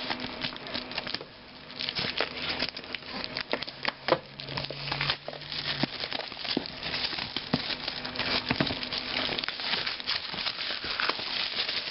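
Plastic wrap being pulled and crumpled off a cardboard box, an irregular crinkling and crackling with a short lull about a second in.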